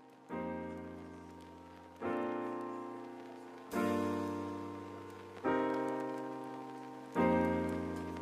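Background piano music: five soft chords, one about every 1.7 seconds, each struck and left to fade before the next.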